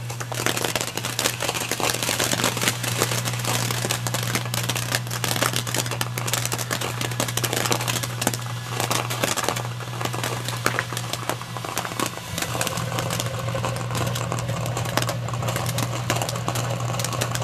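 Firework fountains burning inside a running microwave oven: dense, continuous crackling over the oven's steady low hum.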